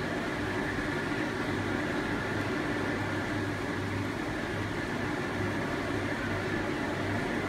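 Steady whir and hum of a running electric pedestal fan, with no sudden sounds.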